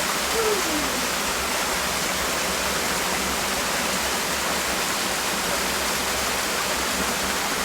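Waterfall rushing close by: a loud, steady roar of falling water.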